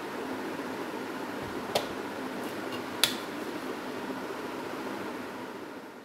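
Two sharp plastic clicks from play-dough toy tools against the marble counter, about a second apart, the second louder. They sit over a steady background hiss that fades out near the end.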